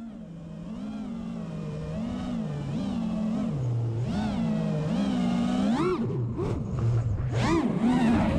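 FPV racing quadcopter's motors and propellers whining, the pitch rising and falling again and again as the throttle is punched and eased, getting louder as it goes, with quicker, sharper swings in the last few seconds.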